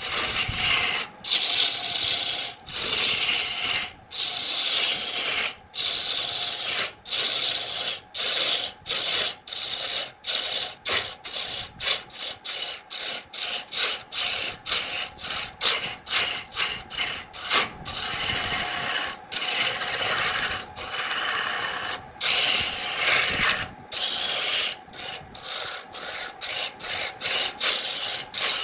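Wood lathe spinning a spindle while a hand-held turning tool shears into it, a dense hissing cut over the lathe's steady hum. The cutting breaks off briefly every second or so, more often in the second half.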